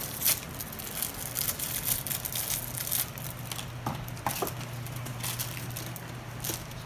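Clear plastic bag crinkling and crackling as it is handled in the hands, in many quick irregular crackles that thin out about halfway through.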